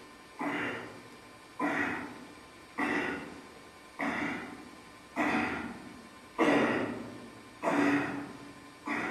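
A man breathing out hard in a steady rhythm while doing heavy barbell shrugs, one short forceful exhale about every second, each starting sharply and fading, eight in all.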